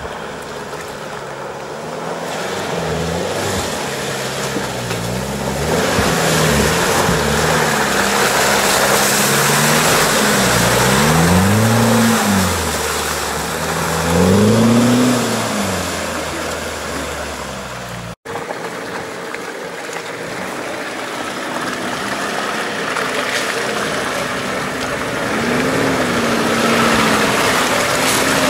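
Off-road 4x4 engines working through deep mud. A Toyota Land Cruiser 70-series revs up and down several times, its pitch swelling and falling. After a cut, a Nissan Patrol runs steadily, rising again near the end, over a constant rushing noise.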